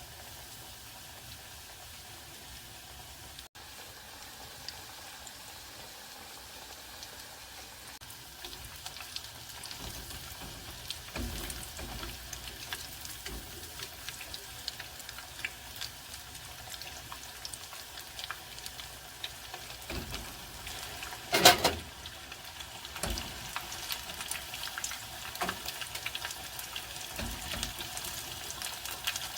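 Chicken cutlet frying in hot oil: a steady sizzle that becomes busy with crackles about a third of the way in. A few knocks come through it, the loudest a brief clatter about two-thirds through.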